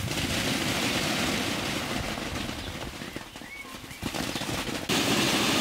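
Large plastic tarpaulin rustling and crackling as it is dragged and spread over grass, easing off in the middle and loud again near the end.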